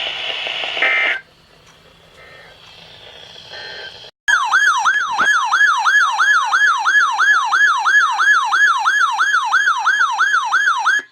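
Weather-radio audio cuts off about a second in, leaving low hiss. About four seconds in, a loud electronic warbling alarm tone starts, sweeping up and down about three times a second.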